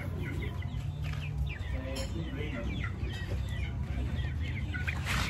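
Chickens clucking and peeping: many short high calls in quick succession, over a low steady rumble.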